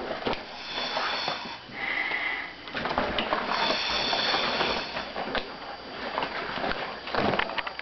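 Inflated latex rubber suit being rubbed and pressed against another rubber costume: rustling and creaking with small clicks, and a held squeak of rubber on rubber about two seconds in.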